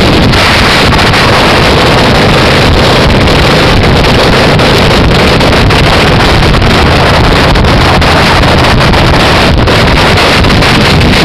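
Heavy wind rushing over the microphone of a camera riding on a motorcycle at highway speed, mixed with the steady drone of the engine and road noise. It is loud and heavily distorted.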